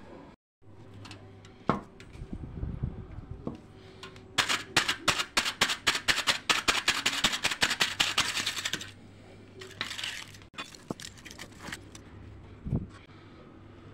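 Fork tines stabbing repeatedly through aluminium foil stretched over a glass bowl: a fast run of sharp crinkling pokes, about six or seven a second, for around four seconds midway.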